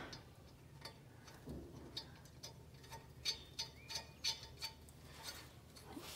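Faint, irregular small metal clicks and ticks as bolts are threaded by hand back into a tractor's hydraulic pedal return bracket, with a quick run of sharper ticks in the middle.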